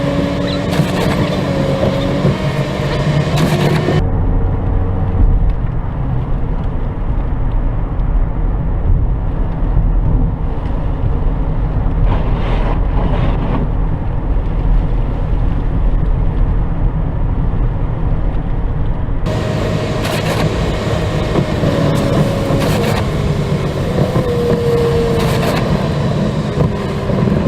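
Steady road and engine rumble heard inside a moving car's cabin. The higher hiss above the rumble drops away about four seconds in and comes back near the end.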